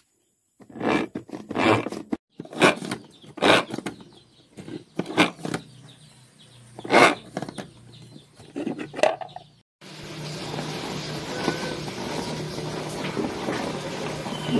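Manual food chopper worked in quick strokes: a short rasping whirr roughly once a second, about a dozen times. Near the end it cuts off suddenly and a steady hiss with a low hum takes over.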